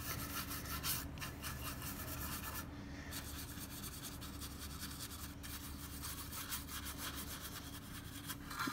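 Bristles of a paintbrush scrubbing back and forth over a hard, glossy plastic model, spreading a liquid protectant: a faint, continuous scratchy rubbing made of quick, irregular strokes.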